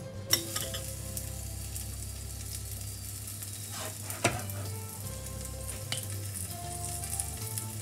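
Metal spoon scooping sticky rice from a steel pot and pressing it into a small stainless-steel bowl, with two sharp knocks, about a third of a second in and about four seconds in, the second a clink of spoon on metal after a short scrape. Under it a steady high hiss and soft background music.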